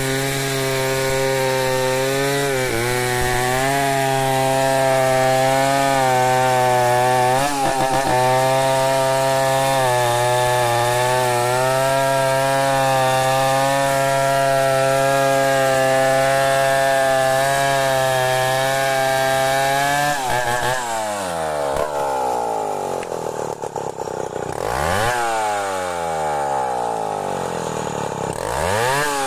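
Stihl 070 two-stroke chainsaw ripping a log lengthwise into planks, running steadily under load with brief dips in engine speed. From about twenty seconds in, the engine speed rises and falls over and over.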